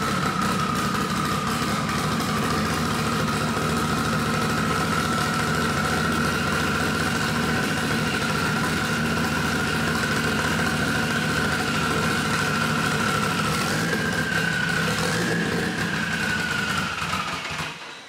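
Mitsubishi Lancer Evolution VIII's freshly rebuilt turbocharged 4G63 four-cylinder idling steadily, with a steady high whine over the idle. The whine lifts briefly near the end before the sound drops away.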